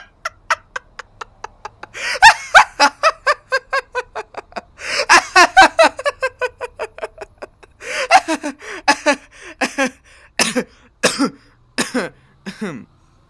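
A person laughing hard in long runs of rapid 'ha-ha-ha', broken by short breaths, then slowing to a few separate, falling laughs that trail off near the end.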